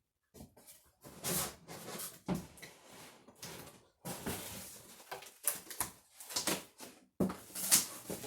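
Rummaging through an emptied cardboard shipping box and its packing, with irregular rustling, scraping and knocking of cardboard being handled.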